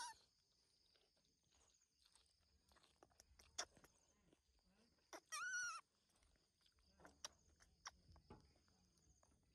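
Baby macaque giving a single high-pitched squeaking call, arched in pitch and about half a second long, around the middle, with the end of a similar squeak right at the start. A few faint sharp clicks sound in between.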